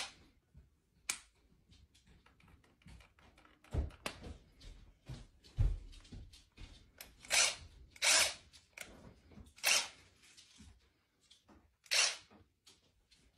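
Cordless drill spun up in short bursts of a fraction of a second each, about seven times with pauses between. A couple of low thumps come around the middle.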